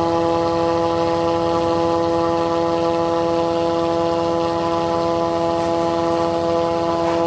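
Electric 2 HP chilli masala grinder (pulverizer) running steadily under load, grinding dried red chillies, with an even whine of several held tones.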